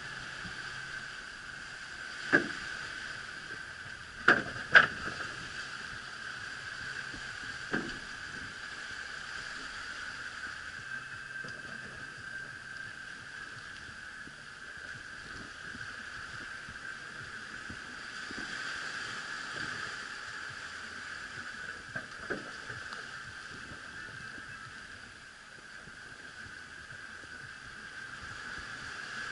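Steady rush of gale-force wind and breaking sea around a sailing yacht running downwind, with a few sharp knocks, the loudest a close pair about four to five seconds in.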